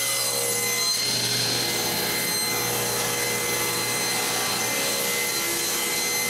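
Table saw running and ripping through a stack of reclaimed oak flooring boards, cutting off the nailed edge. The sound is steady throughout.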